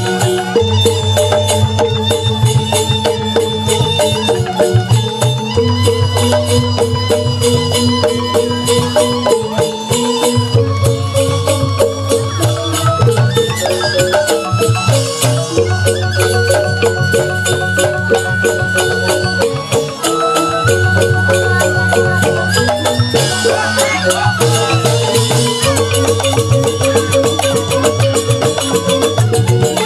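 Balinese gamelan playing a tabuh petegak, an instrumental piece: bronze gangsa metallophones struck in fast, dense patterns over kendang drums, with a bamboo suling flute line. A long held high note sounds for a few seconds around the middle.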